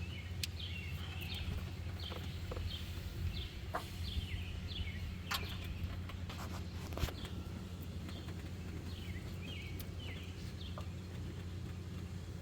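Birds chirping repeatedly in short, falling calls over a steady low hum, with a few faint clicks and taps.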